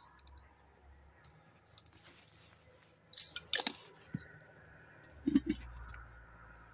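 Small clicks and clinks of objects being handled by hand, with a short rustle about three seconds in and a soft knock a little after five seconds.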